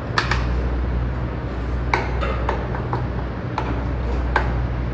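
Sharp metallic clinks and knocks of a stainless steel stand-mixer bowl and wire whisk attachment being handled, about eight in all, over a steady low hum.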